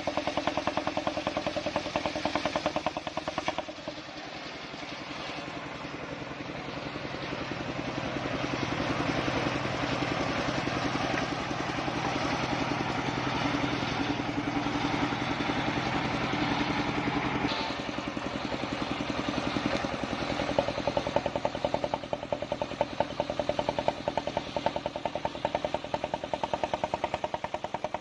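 Engine-driven circular saw: the engine runs with a regular pulsing beat, then about four seconds in the blade goes into a large log and a dense cutting noise builds for some thirteen seconds, before the cut finishes and the engine's pulsing beat returns.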